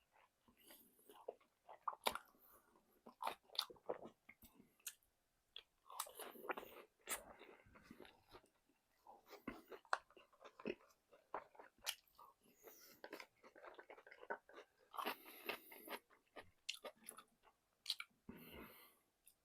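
Close-miked chewing and crunching of crispy fried chicken, with irregular sharp crackles and bites and short pauses between mouthfuls.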